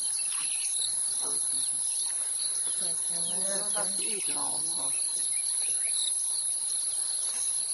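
Steady high-pitched chorus of insects, with faint human voices talking about halfway through.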